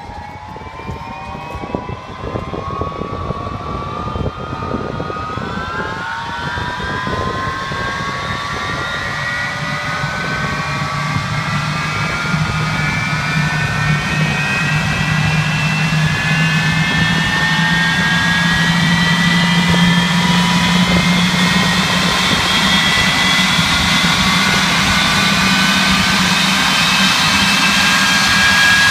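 Lightning jet fighter's engine spooling up on start: a whine rising steadily in pitch and growing louder, with a low steady hum joining about ten seconds in.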